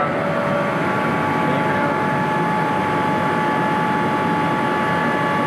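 Atlas Copco rotary screw air compressors running, a steady machine drone with a constant high whine; the third unit has just been started and is running unloaded.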